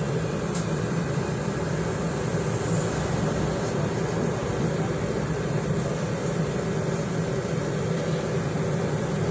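Stagecoach single-deck bus's diesel engine running, a steady hum heard from inside the passenger saloon.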